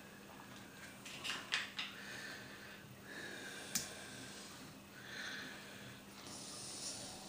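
Homemade gamma-type Stirling engine running over a vaporizing alcohol burner: uneven breathy hissing rushes with a few scattered light clicks over a faint steady hum.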